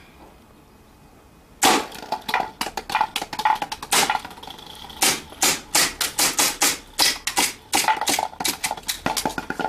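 BB gun fired in a rapid string of sharp shots, about four a second, starting nearly two seconds in, many with a brief ringing note.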